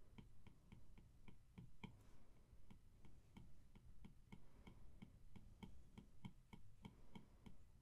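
Faint, rapid taps of an Apple Pencil's plastic tip on an iPad's glass screen, about four a second, as short strokes are drawn one after another.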